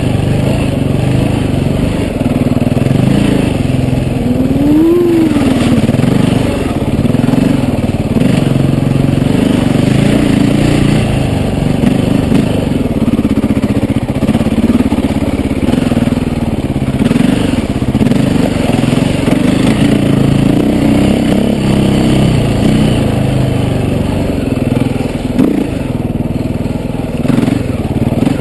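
KTM EXC enduro dirt bike engine running under load as the bike is ridden, its revs rising and falling with the throttle, with a quick rev up and back down about five seconds in.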